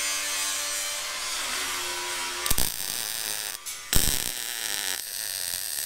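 An angle grinder runs with a steady whine on metal. After a sharp crack about two and a half seconds in, a MIG welder takes over, crackling and buzzing steadily as it lays a bead, with another sharp crack near four seconds.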